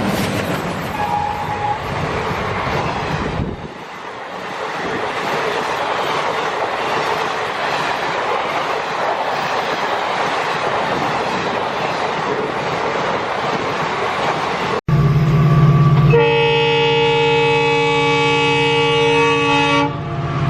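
Train running along its track with a steady rattle, then, after an abrupt cut, a low rumble and a train horn of several tones held for about four seconds near the end.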